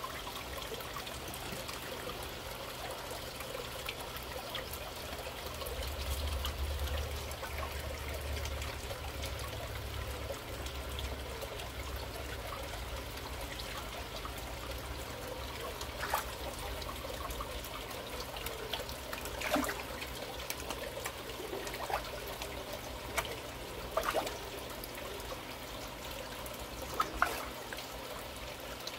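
Water steadily trickling and pouring into a koi holding vat, with a few short sharp clicks or splashes at the surface in the second half.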